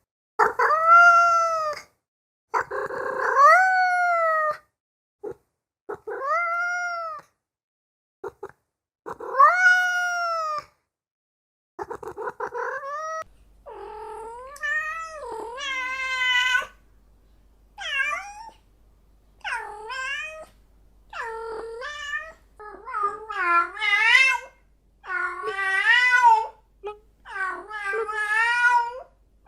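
Domestic cat meowing repeatedly: long, drawn-out meows with gaps between them, then from about halfway quicker, wavering, yowling meows that come close together.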